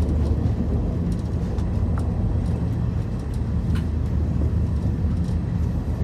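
Passenger train running at speed, heard from inside the carriage: a steady low rumble with a few faint clicks.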